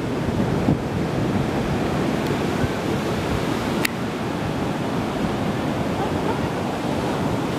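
Steady rush of wind and ocean surf, with wind buffeting the microphone. A single sharp click comes about four seconds in.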